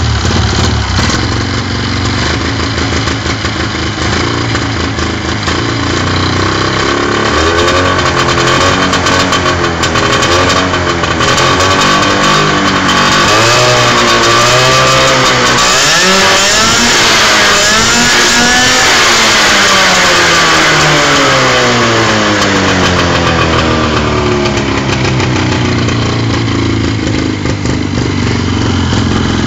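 Homemade crosskart's 500 cc engine idling, blipped a few times, then revved up high and slowly let fall back to a steady idle.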